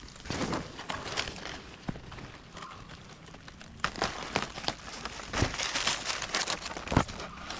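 Dry leaf litter and undergrowth rustling and crackling as a hand pushes through the plants, with a few sharp clicks, the loudest near the end.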